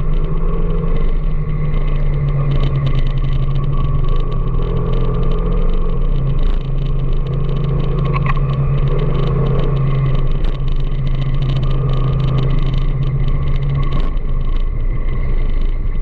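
Steady rumble of riding through city traffic: vehicle engine hum and road noise. The low hum drops away about two seconds before the end, and a brief high tone sounds about halfway through.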